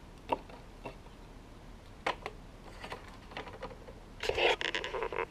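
Small plastic toy accessories clicking and tapping against a plastic playset as they are set in place, with a busier clatter of knocks and handling noise near the end.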